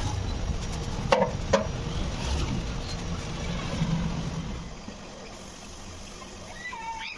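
Plastic scraper scraping stripper-softened paint off a steel motorcycle fuel tank, with two sharp knocks about a second in and a low rumble underneath. It turns quieter about halfway through, and a short chirp sounds near the end.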